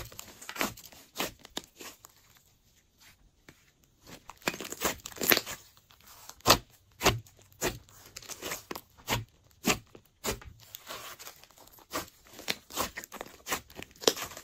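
Thick, glossy slime being pressed, poked and squeezed by hand, giving a string of short, sharp pops and crackles as air pockets in it burst, roughly one or two a second, with a quieter stretch about two seconds in.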